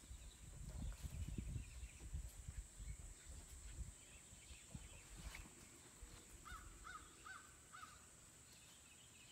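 Low rumbling on the microphone for the first few seconds, then four short calls in quick succession, each rising and falling, about six and a half seconds in.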